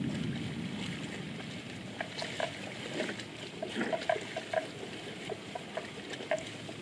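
Water buffalo wading and grazing in shallow floodwater: scattered small splashes and sloshes with short irregular clicks throughout.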